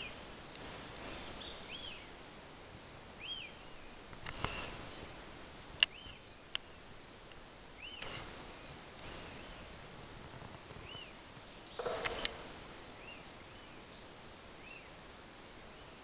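Magellanic woodpecker calling, a short squeaky call that rises and falls, repeated every second or two, with a few loud sharp knocks, two of them in a quick pair near the end.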